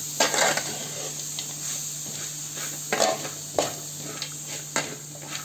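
A spoon stirring and scraping spinach, herbs and onions frying in a wide metal pan, over a steady sizzle; a few louder scrapes stand out, just after the start, around three seconds in and near the end. The greens are being fried for a masala paste.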